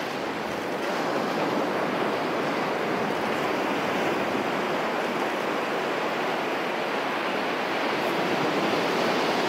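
Ocean surf breaking and washing up the beach, a steady rushing noise.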